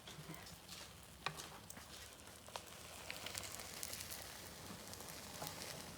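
Faint sizzling of egg frying in a pan for a rolled omelette, with a few light clicks of a utensil against the pan.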